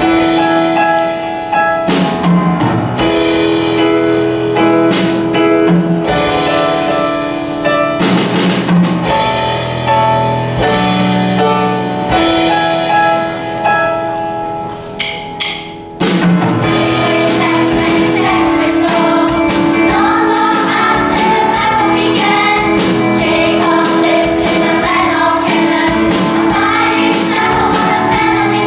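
Grand piano and drum kit playing a lively instrumental introduction with sharp drum hits. About sixteen seconds in, a children's choir comes in singing over the accompaniment.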